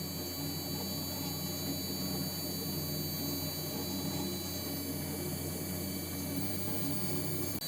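Small 5-axis CNC milling machine running steadily: an even mechanical noise with a hum and a steady high whine, with no change in its sound.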